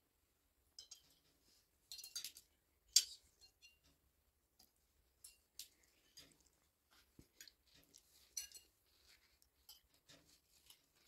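Metal spoons clinking against soup bowls and dishes as people eat, in faint, irregular clicks, the sharpest about three seconds in.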